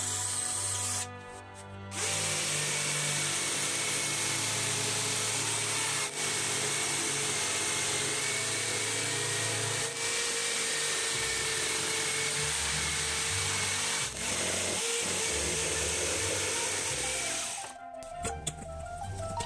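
A power drill briefly bores a starter hole in a pine board. Then an electric jigsaw cuts a circular opening in the board, running steadily with a high whine and a few brief dips for about fifteen seconds before stopping near the end. Background music with a bass line plays underneath.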